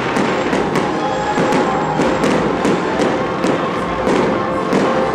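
Music playing alongside a fireworks display, with shells bursting overhead as repeated sharp bangs and crackles, two to three a second.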